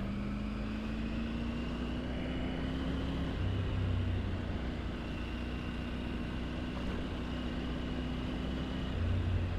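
Triumph Tiger 900 Rally Pro's inline-three engine running at a steady low speed under the rider. Its pitch climbs slowly over the first three seconds, then drops about three and a half seconds in, with a steady rush of road and wind noise.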